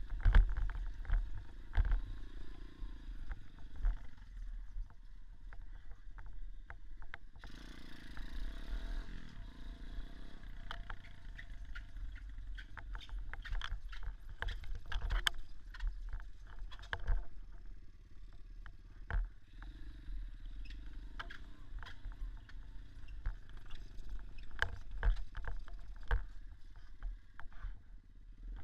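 Small dirt bike's engine running at low revs, rising and falling, with frequent knocks and rattles as the bike bounces over rough ground. A rush of noise comes about eight seconds in and lasts a couple of seconds.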